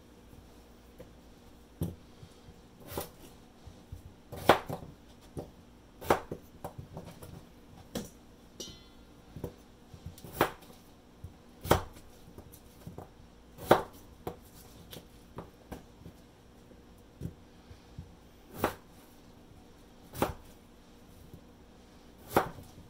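Kitchen knife cutting baking potatoes into wedges, the blade knocking down onto a plastic cutting board in single strokes spaced irregularly a second or two apart.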